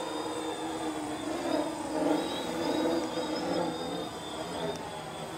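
A quadcopter's electric motors and propellers buzzing as it lifts off and climbs, several pitches wavering up and down as the throttle changes.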